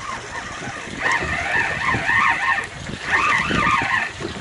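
Fishing reel being cranked to wind in a hooked fish: a whirring whine that wavers up and down, in two spells of a second or two each.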